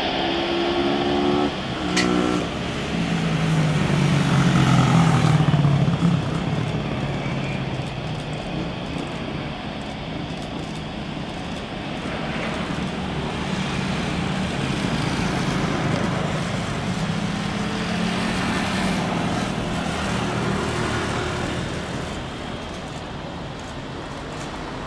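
Boeing 787 jet engines running at approach power as the airliner comes in to land: a steady jet roar with a low hum in it, loudest about four to six seconds in, then easing slightly as the aircraft passes and settles onto the runway.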